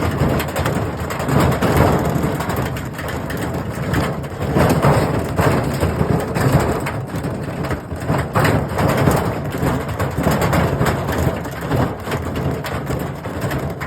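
Washing machine running hard, with a steady low rumble and dense, irregular clattering and crunching knocks.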